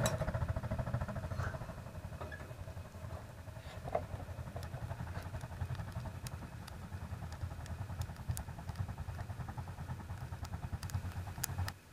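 Wood fire in a homemade propane-tank wood stove drawing hard with its door open: a low, fluttering rumble of air rushing through the firebox and up the flue, with scattered crackles from the burning wood. The strong draw is the sign of a good draft through the newly added double-wall chimney pipe. The sound stops abruptly near the end.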